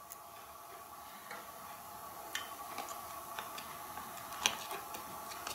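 Small, sharp plastic clicks and taps from handling and pressing a circuit board down onto a blend-door actuator's plastic housing and pins, scattered and irregular, the loudest about four and a half seconds in. A faint steady tone sits underneath.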